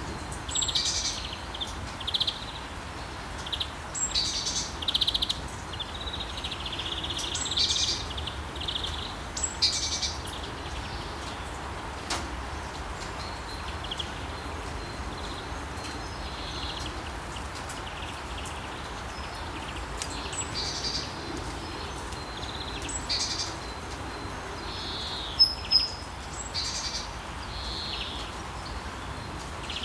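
Small birds chirping and calling again and again over a steady hiss of light rain.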